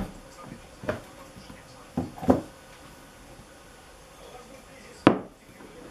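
A few sharp knocks and clunks as a blender's lid is pulled off its plastic jar and a glass mug and the jar are handled on a table, the loudest knock near the end. The blender motor is off.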